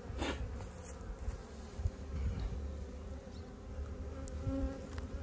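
Honeybees buzzing steadily around an open hive, with a frame of bees and brood comb lifted out among them; a low rumble runs underneath.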